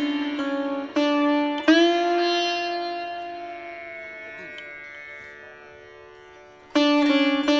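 Background music on a plucked string instrument. Notes are struck about a second in, then one long note dies slowly away, and a loud new note is struck near the end.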